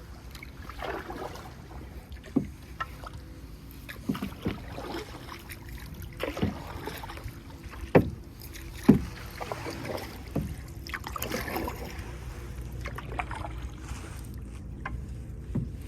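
Paddling a canoe: paddles dipping and splashing in the water, with irregular knocks of paddle against the boat every second or so, over a steady low rumble.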